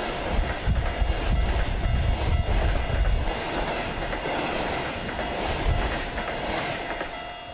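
Recorded sound of a real passenger train running past: a steady rumble of wheels knocking over rail joints, with a high wheel squeal rising in the middle.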